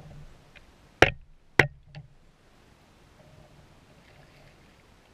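Two sharp, loud knocks about half a second apart, then a fainter third, from the landing net and its handle knocking against the plastic kayak as it is taken up during a bass fight.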